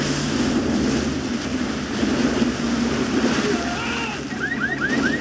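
Seawater rushing and surging through a flooding ferry car deck, a dense continuous rush of water. Near the end a quick run of short high notes cuts in over it.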